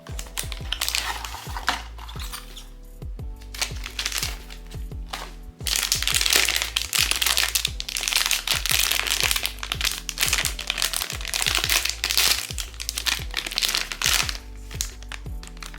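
Blind box packaging crinkling and crackling as it is handled and opened, densest in a long stretch from about six seconds in, over background music.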